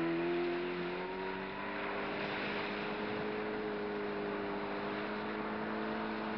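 Motorboat engine at high throttle holding a steady, slightly rising pitch as it tows a person on a rope out of the shallows.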